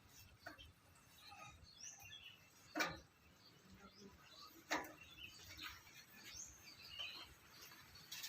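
Faint bird chirps in the background, with two brief sharp sounds about two seconds apart near the middle.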